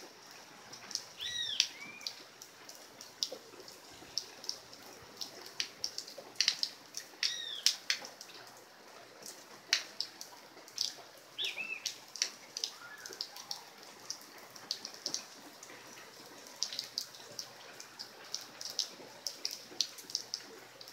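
Light rain falling, with drops landing close by as sharp, irregular ticks over a faint steady hiss. A bird chirps briefly a few times.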